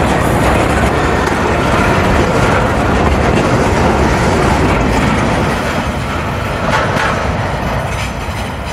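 Freight train of two-level car-carrier wagons rolling past close by: a loud, steady rolling noise of steel wheels on the rails that eases off over the last few seconds as the train draws away.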